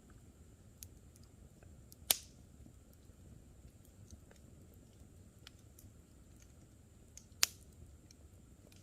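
Campfire crackling: burning wood pops sharply twice, about two seconds in and again near the end, between scattered faint ticks over a low steady rumble of the fire.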